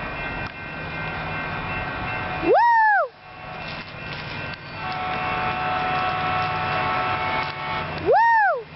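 Caltrain train led by an MP36PH-3C diesel locomotive approaching, its engine rumble and rail noise building from about five seconds in with several steady ringing tones. Two short whoops, rising then falling in pitch, sound about three seconds in and near the end.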